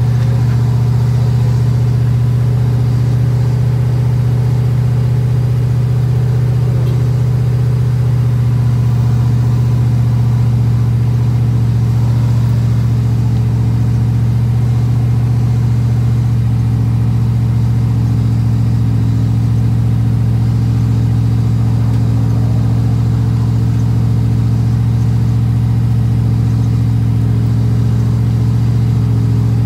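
Ford 6.0L Powerstroke turbo-diesel V8 idling steadily at the tailpipe, still cold after a start in temperatures in the teens (°F).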